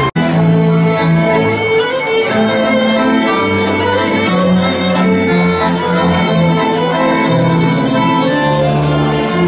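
Tango music played by a small band with accordion and double bass, a melody over a moving bass line. There is a momentary break in the sound right after the start.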